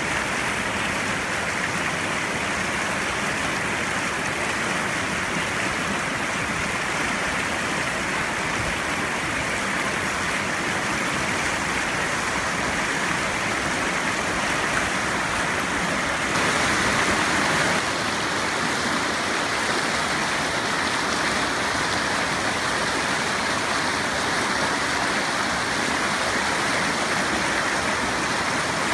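Shallow rocky stream rushing over stones in a riffle, a steady wash of running water that swells slightly for a moment about halfway through.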